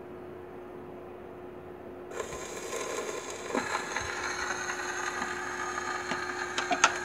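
Victor No. 2 sound box with a custom diaphragm set down on a spinning 78 rpm record on a Victrola VV-90, about two seconds in, then steady surface hiss with scattered clicks from the lead-in groove.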